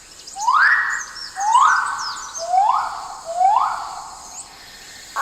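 A bird of paradise giving a series of loud rising calls, four in a row about a second apart, with faint high chirping behind them.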